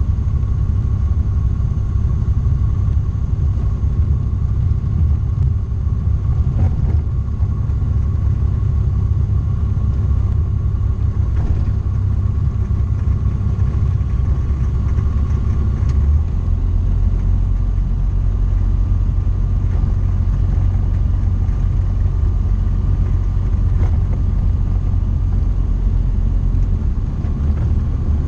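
Tecnam P2002JF's Rotax four-cylinder engine and propeller running at low power while taxiing, heard from inside the cockpit as a steady low rumble. A little past halfway the engine note drops lower.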